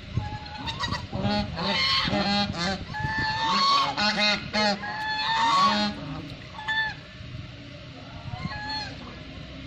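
White domestic geese honking, several calling over one another for about five seconds, then only a few scattered single honks.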